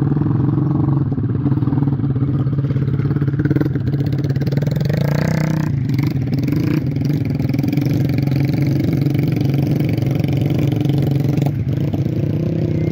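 Small motorcycle engine running steadily while the bike is worked through deep mud under a sack of grain. About five seconds in the engine revs up sharply, then drops back to its steady running.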